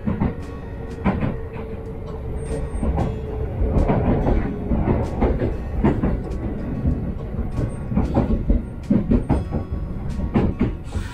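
Kintetsu electric train heard from inside the car as it runs and pulls into a station: a low rumble with wheels clacking over rail joints. A steady whine runs through the first few seconds.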